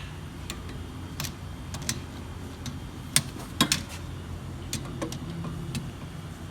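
Irregular sharp clicks and knocks of hand tools and parts being handled during a brake job, about ten in all, the loudest a little past three seconds in and a pair about half a second later.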